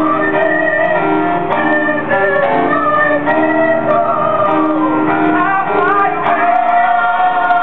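Live music: singing with instrumental accompaniment, a vibrato melody line over steady held chords, with a new long held note beginning about six seconds in.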